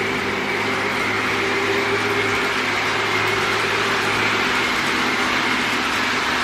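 Lionel GE Evolution Hybrid O-gauge model train running on its track, a steady rolling rumble of the wheels and motor with a low steady hum under it.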